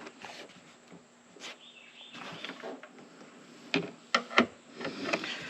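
Light handling noises from plastic car interior trim being worked loose: soft rustling, then a few sharp clicks and knocks about four seconds in.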